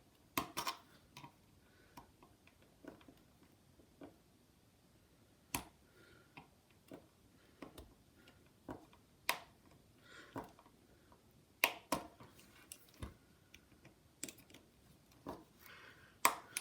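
Irregular small clicks and scrapes of a thin precision screwdriver bit working against the iPod Nano's metal housing while prying out the camera lens, a few clicks sharper than the rest.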